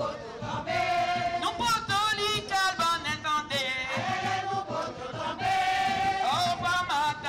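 A group of voices singing a chant-like song, with long held, wavering notes and short rising and falling phrases.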